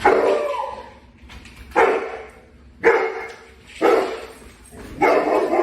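A dog barking in five separate calls, about one a second, each sharp at the start and fading away.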